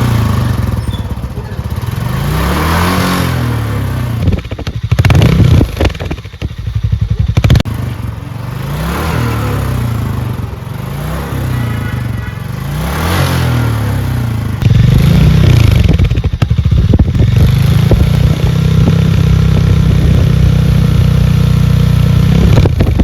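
Single-cylinder motorcycle engine being revved: the revs rise and fall several times, with a couple of sharp throttle blips about five and seven seconds in. The engine is then held at a steady high speed until the sound cuts off abruptly.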